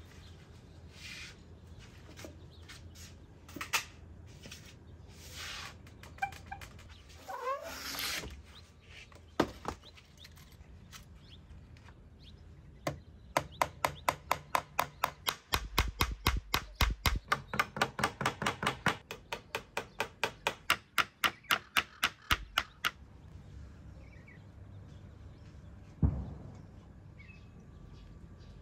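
A hammer striking a nail held in pliers against a painted wooden board: a fast, even run of sharp blows, about four a second for some ten seconds in the middle. Before it come scattered knocks and rustles of handling the wood, and a single thump near the end.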